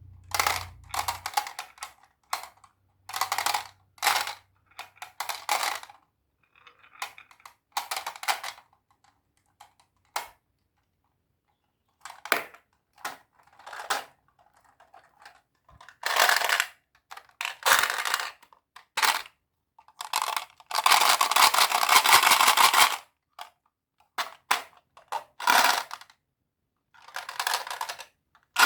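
Marbles rolling and clattering down a wooden HABA marble run, in irregular bursts of rapid clicking and rattling with short pauses between. A longer, dense rattle runs for about two seconds some twenty seconds in.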